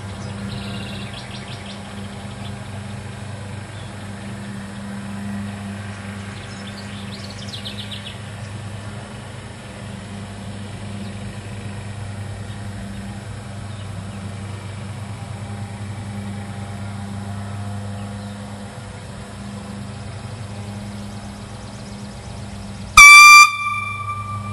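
A steady low hum with a few faint chirps, then near the end one short, very loud blast from a railroad air horn blown on 40 pounds of air pressure. The horn sounds a single high note that rings back as an echo for about a second after it cuts off.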